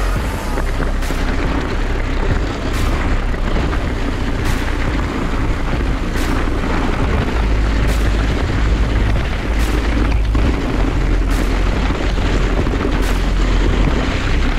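Wind buffeting the microphone and tyre rumble from an e-mountain bike riding a forest trail, a steady heavy rumble. A sharp tick comes about every second and a half to two seconds.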